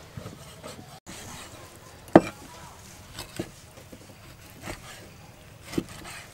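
Meat cleaver chopping raw pork on a wooden chopping block: a handful of separate knocks of the blade against the board, the loudest about two seconds in.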